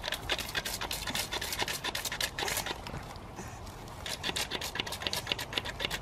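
Rapid, irregular scratching and rustling of a pug puppy rooting about in a leafy shrub, with a short pause about halfway.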